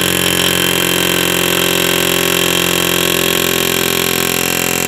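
Pneumatic air chisel (air hammer) hammering rapidly and steadily, driving the pinion out of a rear differential housing.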